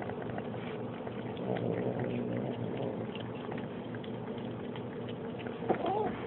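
Tabby kitten grumbling in a low, steady growl while eating wet cat food, mixed with chewing and lip-smacking clicks: a food-guarding "om nom nom" noise. Near the end there is one short higher call that rises and falls.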